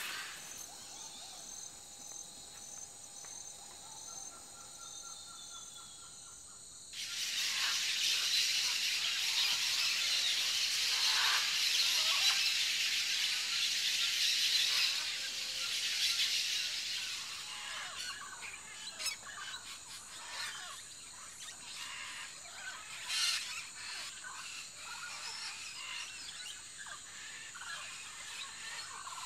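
Tropical forest ambience with scattered bird calls over a steady high-pitched whine. About seven seconds in, a louder, dense high hiss starts abruptly and lasts about ten seconds before fading. A sharp call stands out a little after twenty seconds.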